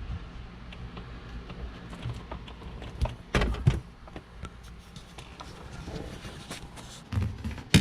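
Plastic car interior trim being worked loose by hand, with a couple of knocks about three seconds in and a sharp snap near the end as a trim clip lets go.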